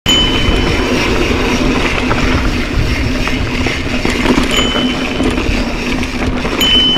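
Mountain bike rolling along a rocky dirt trail: the tyres crunch over dirt and stones while the bike rattles steadily. A thin high whine sounds briefly at the start and again near the end.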